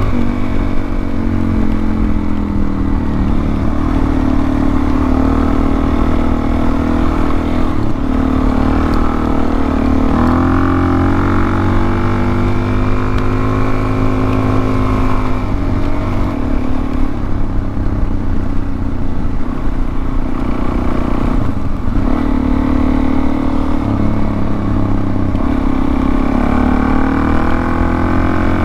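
Suzuki DR-Z400S's single-cylinder four-stroke engine running under way, its pitch climbing and dropping several times with throttle and gear changes.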